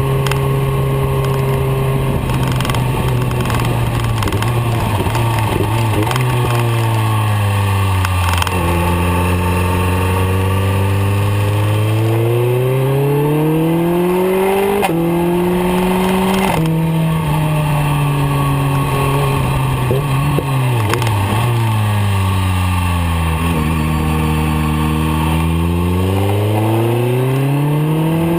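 BMW K1300R's inline-four engine under way, with wind noise over it. The engine's pitch falls twice as revs drop and climbs twice as it pulls again, with a brief jump in pitch about fifteen seconds in.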